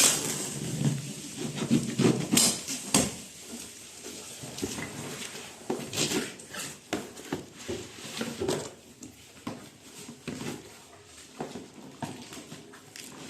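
A cardboard box being opened and its packed contents handled: irregular rustles, scrapes and sharp knocks of cardboard and plastic parts, several louder knocks in the first few seconds.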